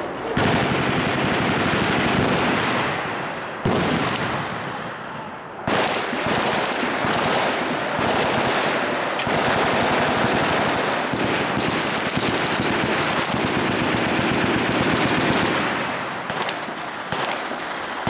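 Belt-fed machine guns firing long full-automatic bursts, almost without a break, with short lulls about three and a half seconds in and again near six seconds.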